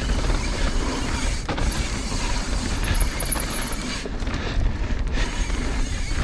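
Evil Insurgent MX mountain bike riding fast down a dirt trail: tyres rolling over packed dirt, with chain and frame rattling and clicking. A steady low rumble of wind on the camera mic runs under it.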